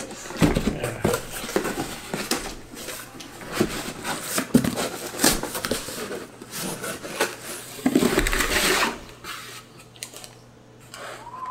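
Cardboard shipping box being opened and handled: flaps flexing and rustling, with irregular scrapes and knocks as the inner box is worked out. The loudest part is a longer scraping rustle about eight seconds in.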